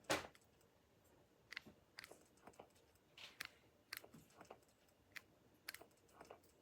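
Near silence, broken by a soft click right at the start and then faint, irregular small clicks and ticks.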